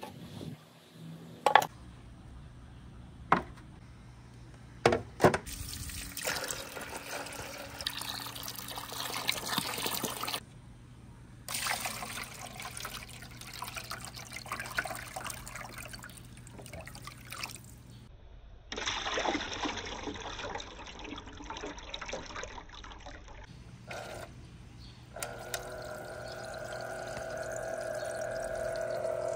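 Water running and trickling down a marble-run waterslide, in several stretches that start and stop abruptly. In the first few seconds there are four sharp clacks of marbles. Near the end a steady humming tone joins the water and grows louder.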